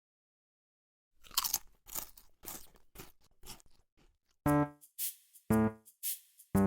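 Background music starting after about a second of silence: a run of quick, crisp percussive hits, then a steady beat from about four and a half seconds in, with a low pitched hit about once a second alternating with a snappy hit.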